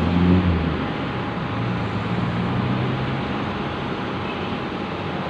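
Road traffic at a city junction: cars and a minibus driving past, with steady road noise. A vehicle's low engine hum is loudest in the first second and fades over the next two seconds.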